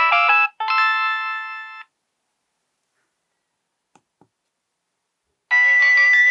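Nokia 7210 polyphonic ringtones. One melody ends on a held chord that fades out a couple of seconds in. After a pause with two faint clicks, the next ringtone starts near the end.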